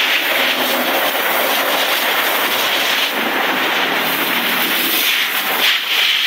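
Garden hose spraying water onto hard ground, a steady hiss of water with a brief break near the end.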